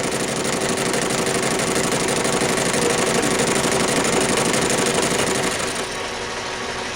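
Metal lathe running and cutting steel: a steady machine hum with a dense hiss of the cut. The hiss drops away about six seconds in while the lathe keeps running.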